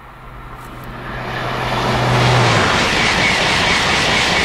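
TGV Duplex high-speed train approaching and passing at speed: a rush of wheel and air noise that swells over about two seconds and stays loud as the double-deck cars stream past. A low hum fades out about halfway through, and a faint high whistle rides on top in the second half.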